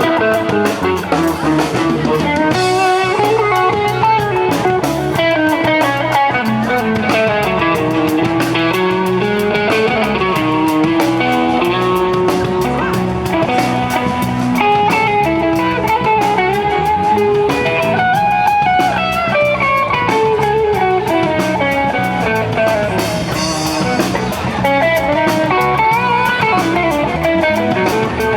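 Live band playing an instrumental passage between sung verses: an electric guitar lead over the drum kit.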